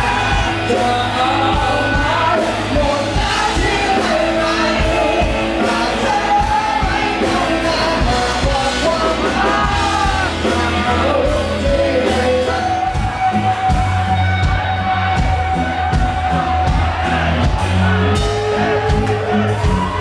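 A live rock band plays, with electric guitar, bass guitar and singing, and the audience shouts and yells along.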